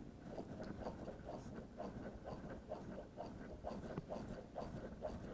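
Hands-only chest compressions on a CPR training manikin: a soft, faint sound with each push, repeating steadily about twice a second, the rate of at least 100 compressions a minute.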